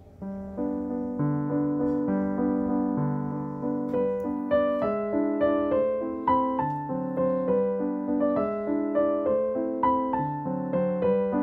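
Background piano music: a gentle melody of single notes struck a few times a second over held lower chords, coming in right at the start.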